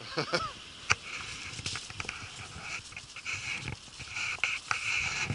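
Dry brush and twigs rustling and crackling, with sharp snaps now and then and a hiss that comes and goes in patches.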